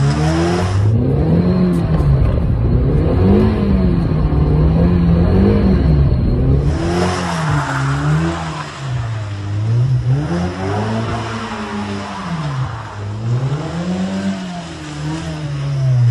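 A convertible sports car's engine revving up and down over and over, its pitch swelling and dropping every second or two, as the car is slid around in skids.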